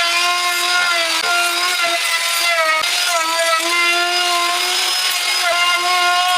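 Electric woodworking power tool running at high speed and cutting wood: a steady high-pitched motor whine that sags briefly in pitch several times as the cutter takes load.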